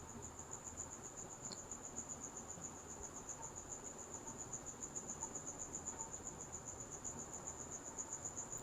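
Faint, steady, high-pitched cricket trill, a fast even pulsing that goes on without a break.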